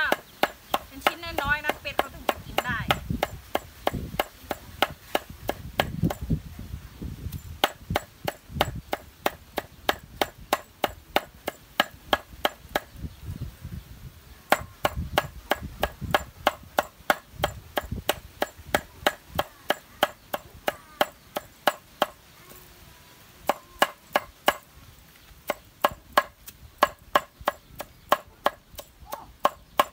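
Knife chopping vegetables on a cutting board, a quick steady run of sharp strokes about three a second, broken by a couple of short pauses.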